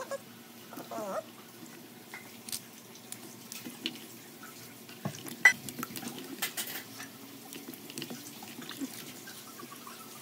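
Peeled potatoes being cut into chunks with a small knife and dropped into a bowl of water: scattered small splashes, drips and knife clicks, one a little sharper about five and a half seconds in.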